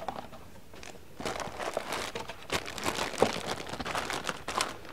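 Clear plastic bag crinkling and rustling in the hands, a bagged new carburetor being handled, starting about a second in.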